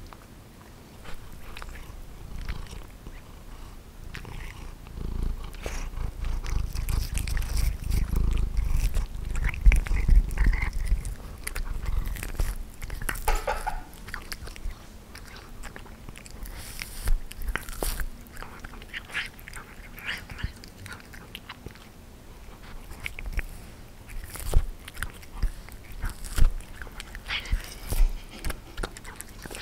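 A cat chewing and gnawing meat off a barbecued pork rib bone, with irregular sharp clicks of teeth on the bone. A low rumble runs through the first half.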